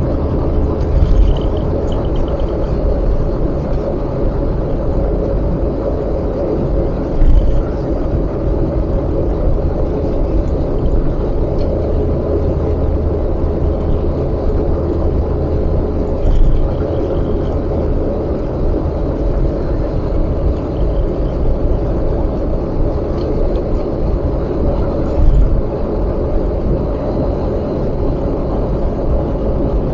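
Steady road noise and engine hum of a car driving on an expressway, with three short louder thumps about 7, 16 and 25 seconds in.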